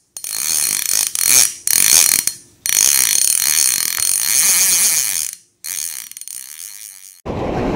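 Intro sound effect: a mechanical ratcheting whir in four bursts that stop and start abruptly. About seven seconds in it gives way to the rush of surf and wind.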